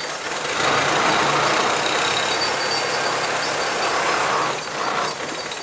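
Boat engine running under a rushing noise that swells about half a second in and eases off near the end.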